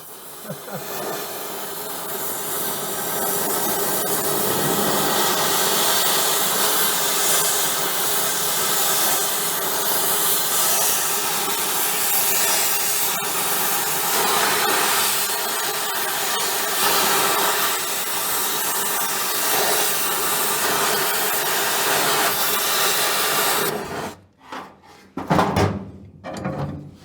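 Oxy-fuel torch flame hissing steadily as it heats a steel pedal arm so that it can be bent. The hiss cuts off near the end, followed by a few short sounds.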